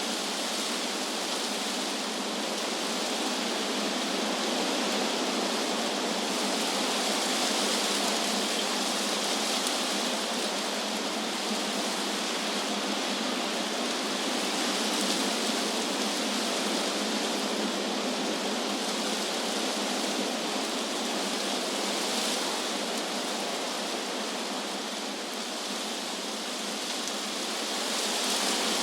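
Wind blowing through trees: a steady rushing hiss of leaves that swells and eases slowly, dipping a little near the end and rising again.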